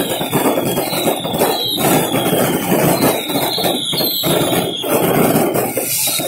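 Fireworks going off in a dense barrage: continuous crackling with scattered sharp bangs, and a shrill whistle that slides down in pitch again and again.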